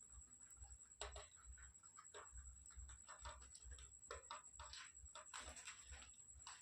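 Pet parrot making faint, scattered clicks and scratches, with a steady high-pitched whine in the background.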